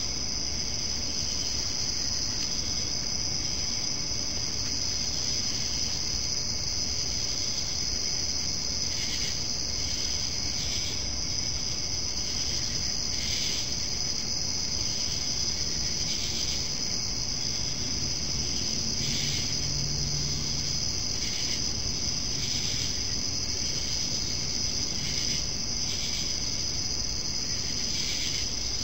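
Steady high-pitched chorus of crickets calling at night, with shorter calls breaking in every second or two over the continuous trill.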